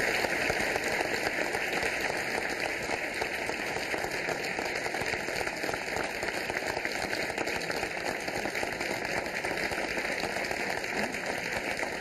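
Audience giving a standing ovation: dense, steady applause from many people clapping.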